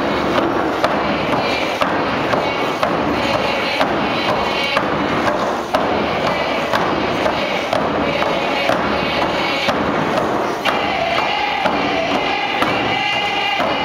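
Drum beaten in a steady beat, about one stroke a second, under a group singing a potlatch dance song; in the last few seconds the sung notes come through more clearly.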